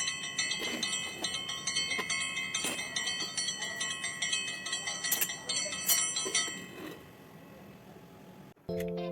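A bright, bell-like ringing sound effect with many steady high overtones and scattered light taps, which fades out about seven seconds in. A low buzzing tone starts just before the end.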